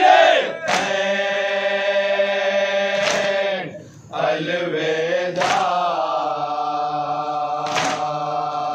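Male voices chanting a noha, the Shia lament, in long drawn-out held notes. A sharp slap lands about every two and a half seconds, the mourners' chest-beating (matam) that keeps time with the lament.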